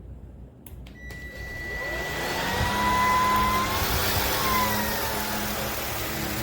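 Cordless stick vacuum switched on: a click, then its motor whine rises in pitch as it spins up, settling into a steady run with rushing airflow.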